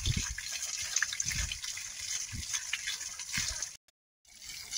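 Borewell water pumped by air compressor, gushing and splashing with irregular low surges. The sound cuts out briefly near the end, then the gushing resumes.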